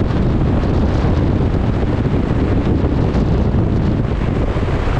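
Steady wind buffeting the microphone aboard a ship at sea, a loud low rumble over the rush of choppy water.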